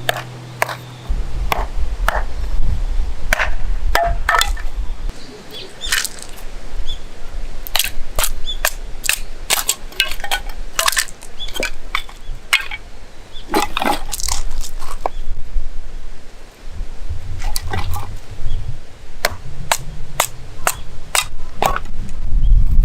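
Wood at a campfire cracking and snapping in sharp, irregular pops, some in quick runs, over a low rumble.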